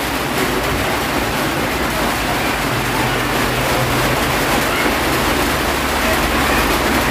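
Rain falling steadily, a loud, even hiss with no breaks.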